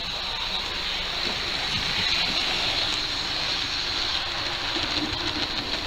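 Model train running past on the track: a steady rushing noise of wheels rolling on rail, swelling over the first couple of seconds and then holding.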